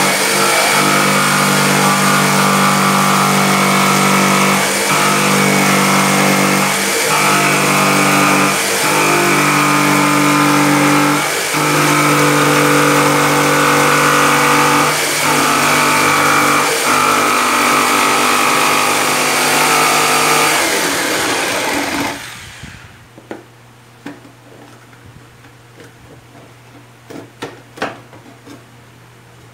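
Corded electric jigsaw cutting a handle opening through the top panel of a speaker cabinet, its motor running steadily with the cutting note shifting every second or two. The saw winds down and stops a little over 20 seconds in, and a few light knocks follow near the end.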